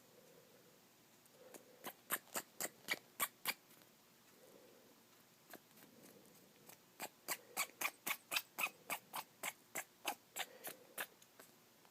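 Pet rat sneezing in rapid fits: short, sharp, high sneezes at about four a second, one run of about eight starting a second and a half in and a longer run of about fifteen from about seven seconds to eleven.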